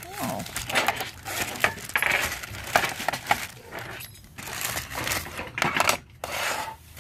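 A zip-top plastic bag crinkling and rustling as it is unzipped and handled, with light clicks and clinks from the metal tin case being slid out of it.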